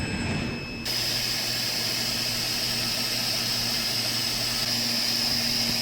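Steady machine noise from a high-speed gantry machining centre: an even high hiss with a whine in it. It starts abruptly about a second in.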